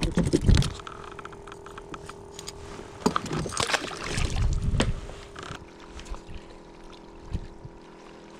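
A gafftopsail catfish thrown back from a kayak splashes into the water about three to five seconds in, after a few knocks at the start. A faint steady hum follows in the second half.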